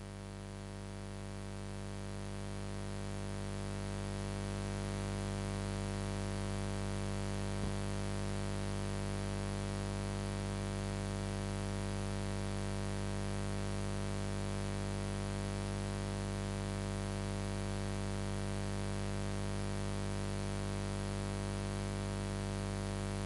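A steady electronic drone of many held tones, swelling over the first five seconds and then holding level, with one faint tick about a third of the way through.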